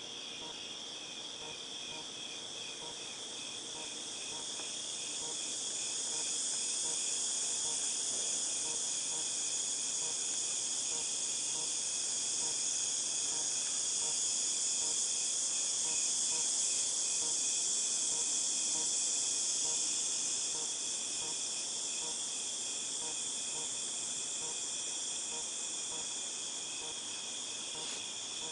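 A chorus of cicadas buzzing with a high, steady ringing drone that swells about four seconds in and eases off again after about twenty seconds. A regular pulsing chirp runs underneath.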